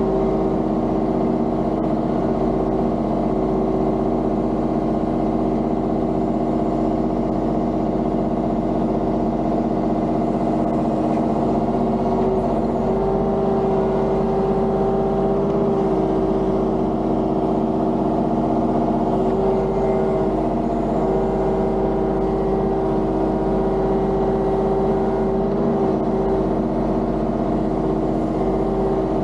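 Compact diesel engine of a mini excavator running steadily at working throttle, its pitch dipping slightly now and then as the hydraulics take load.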